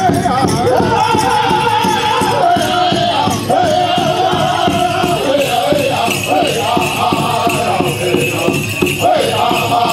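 Powwow drum group singing a high-pitched chicken dance song over a steady, even drumbeat, with the rattling jingle of the dancers' regalia bells.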